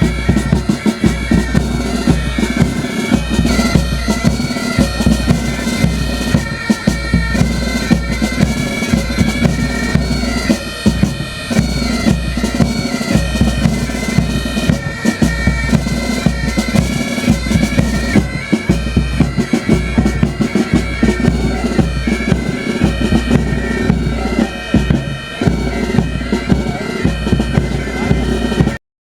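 Pipe band music: bagpipes play a melody over their steady drone, with drums beating a regular march rhythm. The sound cuts out completely for a moment just before the end.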